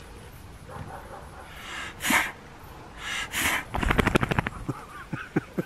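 A man blowing air at a dog's face: two breathy puffs, then a quick fluttering blow like a lip trill, followed by a few short sharp clicks near the end.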